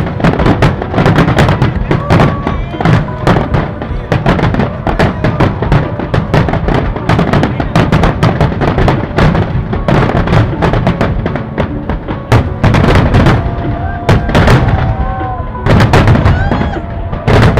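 Fireworks display: a dense, loud barrage of booming bursts and crackles, many a second, with no let-up.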